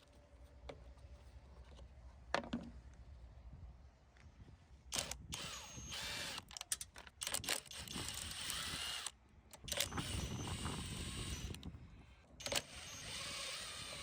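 Tool work on a small lawnmower engine while the carburetor is being removed: several sharp clicks and knocks, with stretches of rapid mechanical rattling lasting a second or two each.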